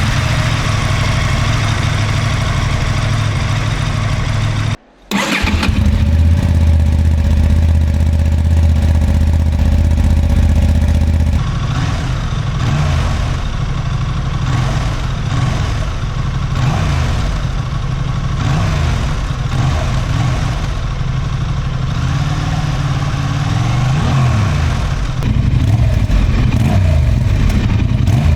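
Honda XL 750 Transalp's 755 cc parallel-twin engine with its stock exhaust, idling steadily, with a brief cut-out about five seconds in. After about eleven seconds the engine speed starts rising and falling again and again as it is revved.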